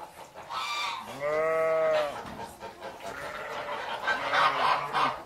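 Bleating calls: one drawn-out bleat about a second in, a shorter fainter one after it, then rougher, raspier calls near the end.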